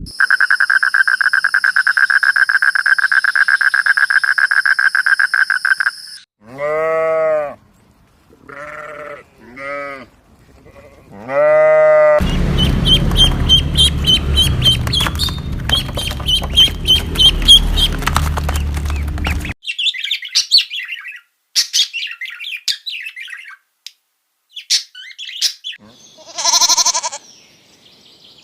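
A run of different animal sounds: a steady, rapidly pulsing buzz for about six seconds, then four separate bleats, then repeated high chirps over a loud rumbling background, and finally scattered short chirps.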